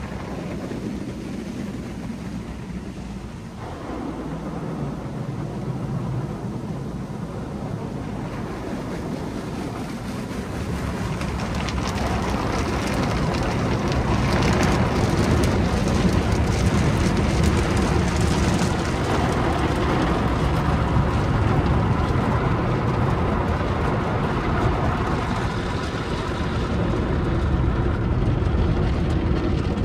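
Automatic car wash tunnel heard from inside the car: water jets spraying the body, then cloth wash brushes and hanging cloth strips scrubbing across the car. It grows louder about ten seconds in and stays loud.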